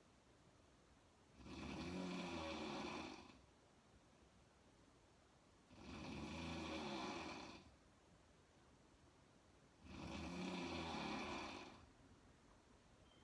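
A woman snoring: three long snores about four seconds apart, each lasting about two seconds.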